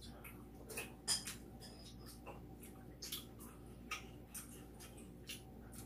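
Metal spoon and chopsticks clicking against ceramic soup bowls while eating: short, irregular clicks, the sharpest about a second in.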